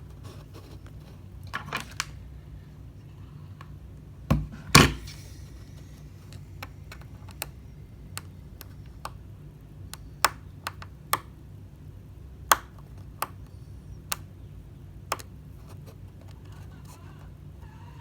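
Small tools and phone parts being handled on a work surface during a phone screen repair: scattered sharp clicks and taps, with two louder knocks between four and five seconds in, over a steady low hum.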